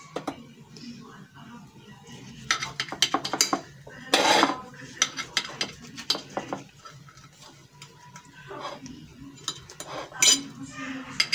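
Plate and knife clattering as a baked bread ring is handled and cut: scattered clinks and scrapes in short clusters, with a loud clink about four seconds in and a sharp one near the end.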